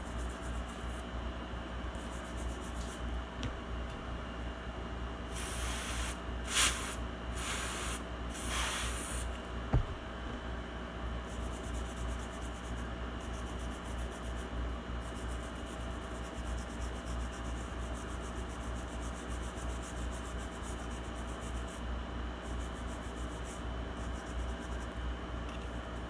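Small brush scrubbing a liquid-damaged laptop logic board with cleaning solvent to lift the corrosion: a steady, fast, scratchy brushing. A few louder short hisses come about a quarter of the way in, followed by a single click.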